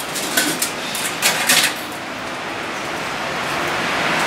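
Light rail vehicle standing at the platform: a few short hisses in the first two seconds, then a steady running noise that slowly grows louder.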